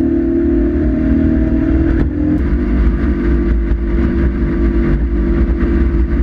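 Boat's outboard motor running steadily under way, its pitch drifting slightly and shifting about two seconds in.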